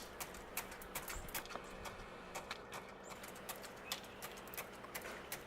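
Wild turkey pecking feed out of a cooler: a run of sharp, irregular taps, several a second.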